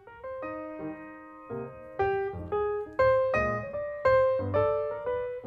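Piano music: a melody of single notes and chords, each note struck and ringing out, softer at first and louder from about two seconds in.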